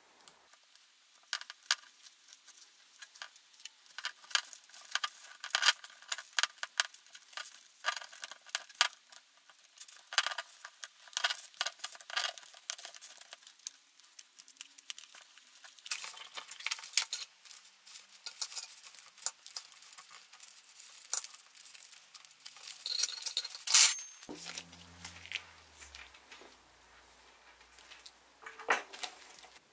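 Irregular light clicks and clinks of small hard objects being handled, some ringing briefly, the loudest about three quarters of the way through. A short low hum that steps down in pitch follows it.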